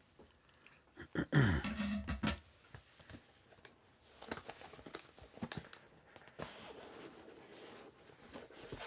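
Cardboard packaging being handled: scattered clicks and taps, a louder scrape about a second in, then a long soft rubbing as a snug cardboard sleeve slides off the box.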